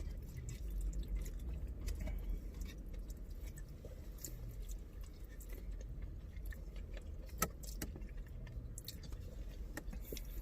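Eating sounds in a car cabin: quiet chewing with scattered small clicks and rustles, over a low steady rumble.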